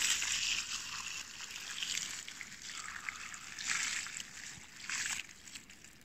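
Milk being poured onto a tree trunk, splashing and trickling down the bark. It swells and eases several times and stops a little after five seconds in.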